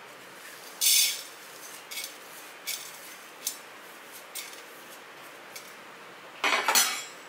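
Fennel seeds poured into a dry aluminium kadai, a brief hissing rattle about a second in, followed by a few light ticks as stray seeds settle. A short metallic clatter comes near the end.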